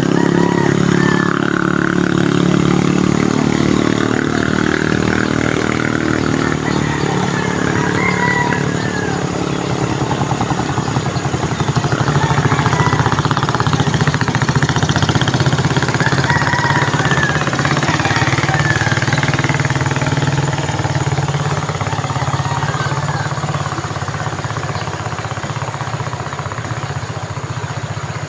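A small engine running steadily and loudly.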